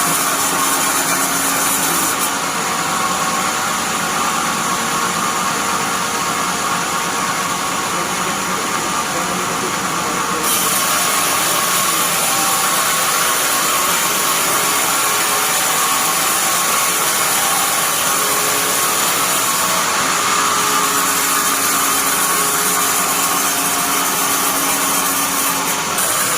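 Band sawmill running with a loud, steady mechanical noise; its high hiss drops away about two seconds in and returns around ten seconds in.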